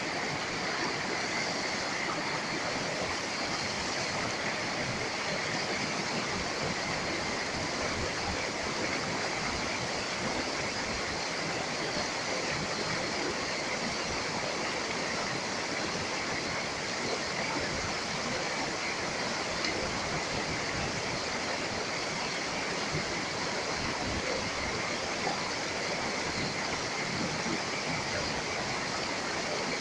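Shallow mountain stream rushing over and around boulders in small rapids: a steady, even rush of water.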